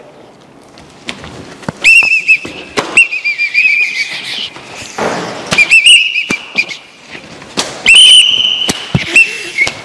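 Pea whistle blown in repeated short trilling blasts, with scattered sharp knocks and slaps in between.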